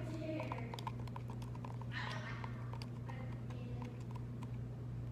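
Slime mixture of glue and contact solution being stirred with a utensil in a container: light, irregular clicks and taps over a steady low hum.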